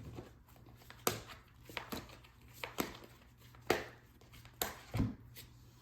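A deck of cards being handled on a table: about six sharp taps and clicks, roughly one a second.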